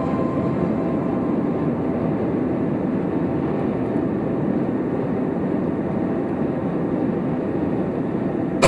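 Steady road and engine noise heard from inside a moving car at highway speed, an even low rumble without change.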